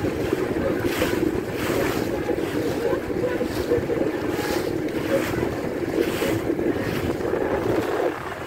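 Motorboat under way on a lake: a steady engine drone with water rushing and slapping at the hull, and wind buffeting the microphone in repeated gusts. The drone drops away shortly before the end.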